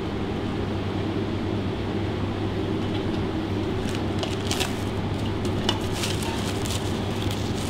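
Steady hum of kitchen ventilation or extraction running, with a few faint light taps about four to six seconds in.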